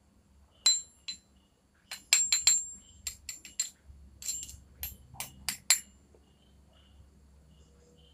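Metal parts of a Hammerhead Flanker 1000 spinning reel clicking and clinking together as the spool and reel body are handled: a string of sharp clicks with a bright ring, bunched around two and five seconds in.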